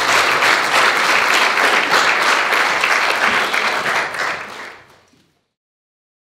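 Audience applauding, a dense steady clapping that fades away about five seconds in.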